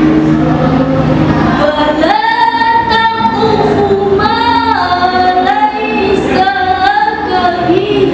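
A girl's voice chanting Quranic verses in melodic tilawah style through a microphone and PA, with long held notes and ornamented pitch turns, coming in about two seconds in. A steady low hum fills the first two seconds.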